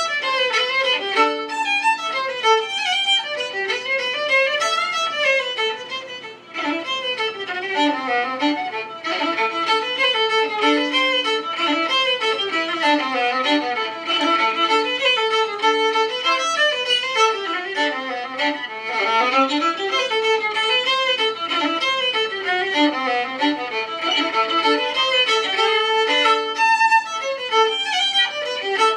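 Solo fiddle playing an Irish traditional tune in Sligo style, in quick running notes, with a brief gap about six seconds in.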